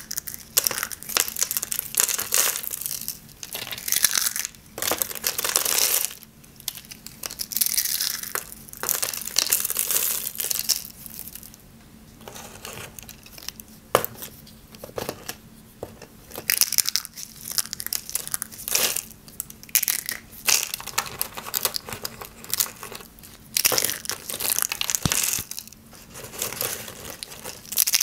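Dry, hard soap curls crunching, cracking and snapping as a hand crushes them, in spells of dense crackling with short quieter gaps between them.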